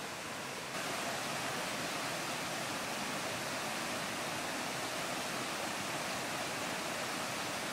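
Steady, even hiss from a pot of water heating a retort pouch over the cooking heat.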